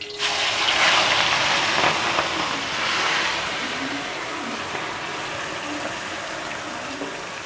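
Chopped onion, capsicum and tomato dropped into hot oil in a kadai, sizzling hard at once and then easing over a few seconds into a steadier, quieter sizzle.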